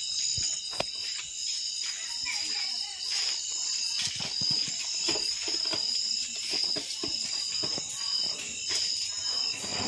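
Night insects chirping in a steady, high-pitched pulsing chorus, with a few soft clicks and rustles near the microphone.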